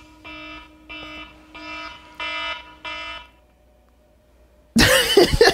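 Phone alarm ringing in short repeated chimes, about one every 0.6 s, stopping about three seconds in as it is picked up and switched off. A loud sudden noise comes near the end.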